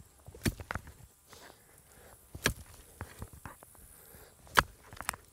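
Pickaxe striking into dirt while digging a trench, a sharp thud roughly every two seconds.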